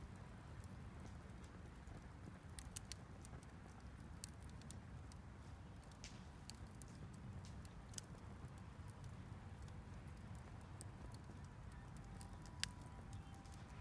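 Wood fire crackling in a homemade fire stand: faint, scattered snaps and pops over a low steady rumble, with one sharper pop near the end.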